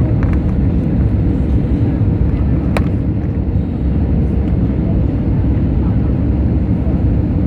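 Steady low rumble of an Airbus A320neo's engines and airflow heard inside the passenger cabin, with one sharp click about three seconds in.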